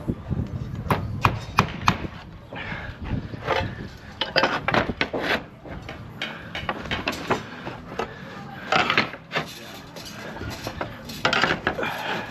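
Irregular sharp hammer taps and clatter of slates being handled and nailed while laying a slate roof.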